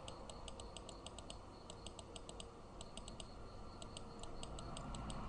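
Faint, rapid light clicking at a computer, in several quick runs of small clicks with short pauses between, over a steady low hum.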